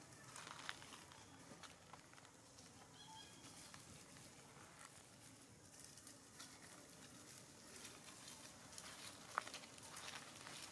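Near silence with faint rustling and ticking of dry leaf litter as macaques shift and walk on it. There is a brief faint high chirp about three seconds in and one sharper tick about nine seconds in.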